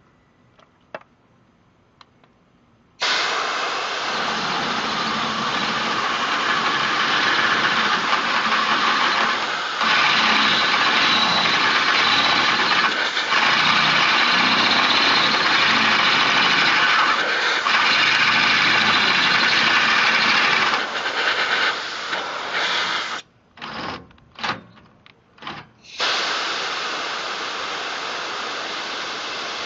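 A Chicago Electric 1/2-inch corded variable-speed hammer drill, used as a plain drill, runs a 3/8-inch twist bit through steel angle while a compressed-air blow gun hisses on the bit to cool it. It starts suddenly about three seconds in and runs steadily. Near the end it cuts out and restarts in several short bursts, then runs on.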